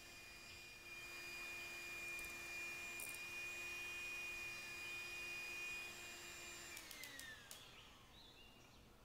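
Electric hand mixer running steadily with a thin motor whine as its twin beaters whip eggs in a glass bowl. About seven seconds in the whine falls in pitch and dies away as the motor is switched off and spins down.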